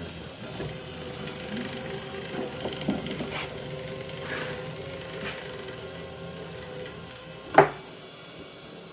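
Electric motor of a StripMeister E250-converted wire stripping machine running steadily while heavy 2/0 cable is fed through and its insulation is cut, with scraping and creaking of the wire in the rollers. A single sharp, loud sound comes near the end.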